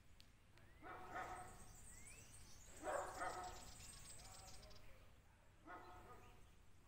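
A dog barking faintly three times, a couple of seconds apart, with faint high chirping in between.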